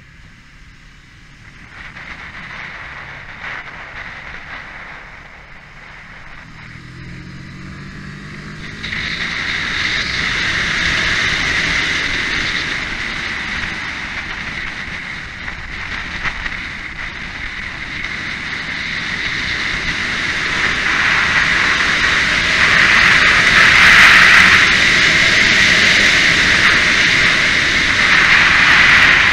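Onboard sound of a Kawasaki Ninja parallel-twin sport bike at speed: the engine pitch rises as it accelerates about a quarter of the way in. Wind noise on the camera then grows loud and stays dominant as speed builds.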